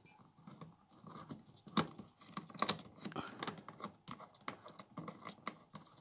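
Irregular small clicks and scrapes of hands working a metal motor start capacitor free of its mounting bracket and wiring on a clothes dryer motor, with one sharper click about two seconds in.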